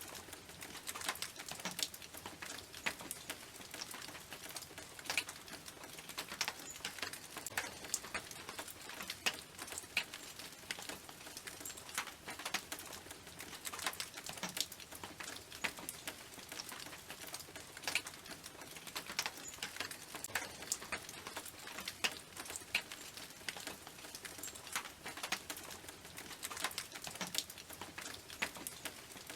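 Rain falling on a tin roof: a steady patter of drops, heard as many sharp, irregular ticks over a light hiss.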